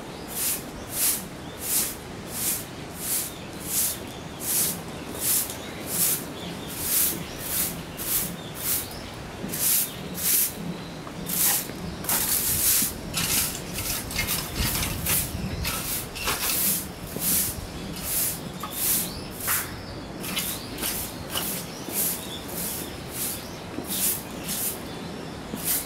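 Footsteps crunching on gravel at a slow, even walking pace, about one and a half to two steps a second.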